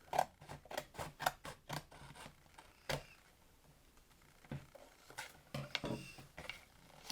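Scissors cutting with a series of short snips, several a second over the first two seconds, then a pause and a few more snips past the middle.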